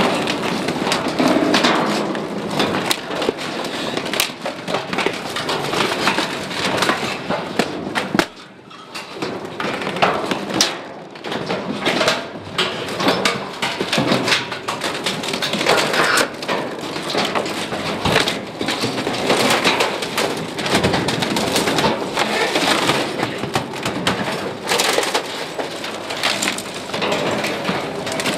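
Spiked compaction roller of a Bergmann Roll-Packer rolling over bulky waste in an open steel container, crushing a leather sofa and other furniture. A continuous stream of crunching and sharp cracks, briefly quieter about eight seconds in.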